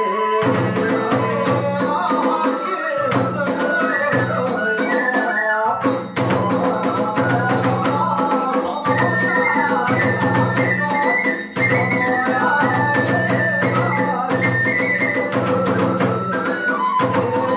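Iwami kagura hayashi ensemble playing: a bamboo flute melody over steady drum beats and clashing hand cymbals.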